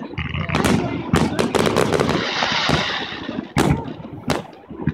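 Aerial fireworks shells bursting overhead: a quick string of sharp bangs in the first two seconds, a spell of dense crackle around the middle, then two more single booms near the end.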